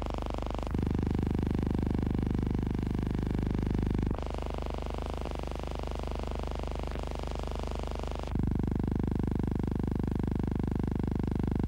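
Steady low hum and buzz of a silent film transfer's blank soundtrack, with no speech or music, that changes abruptly in tone at each shot change, about a second in, near the middle and a little after two-thirds of the way.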